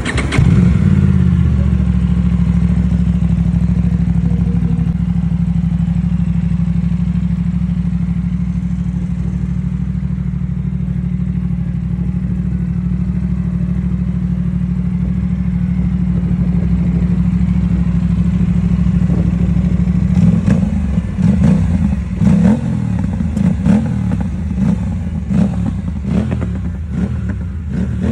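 Aprilia RS457 parallel-twin engine running through an aftermarket Ixil SX1 slip-on exhaust: a steady idle, then about two-thirds of the way through, a series of quick throttle blips, the note rising and falling with each one.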